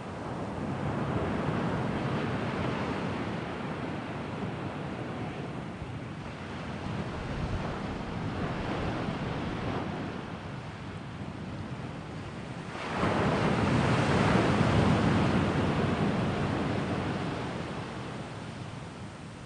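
Ocean waves surging against the shore in swells. The biggest wave comes in suddenly about two-thirds of the way through and slowly dies away.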